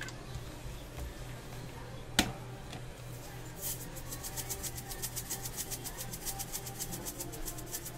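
Sesame seeds rattling in a shaker, shaken quickly in an even rhythm of about seven shakes a second over raw flatbread dough, starting a little past halfway. Before that, one sharp click.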